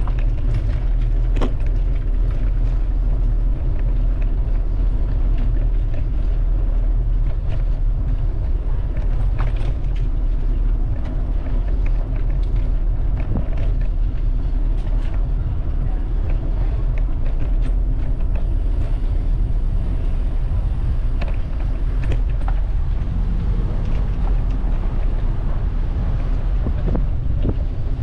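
Street noise picked up from a moving bicycle: a steady low rumble of wind and road noise on the microphone, with scattered light clicks and knocks.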